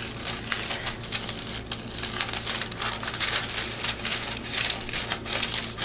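A folded sheet of paper being cut out with scissors and handled, giving irregular crisp rustling and crinkling with short snips.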